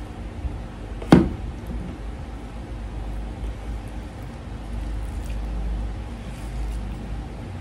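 A small plastic bowl knocked down onto a table about a second in, followed by the soft squish and faint clicks of rice and curry being mixed by hand on a plastic plate, over a steady low rumble.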